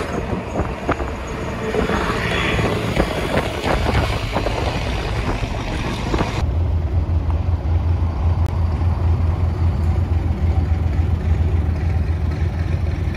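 Traffic and wind noise from driving along an expressway. About six seconds in, it gives way abruptly to the steady low rumble of a truck's diesel engine running.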